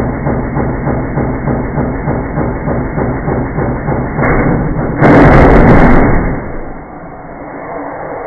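Beko WM5140W washing machine, its motor hot-wired for full speed, spinning its drum with rapid rhythmic knocking. About four seconds in a brick goes into the spinning drum, the banging grows, and about five seconds in there is a loud crash lasting about a second as the brick smashes through the drum and the machine jumps and throws its top off. The noise drops suddenly about six seconds in as the drum jams and the supply trips, leaving a lower rattle.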